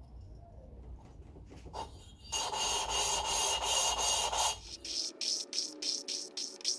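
A rasping rub lasting about two seconds. About five seconds in, background music with a steady beat starts.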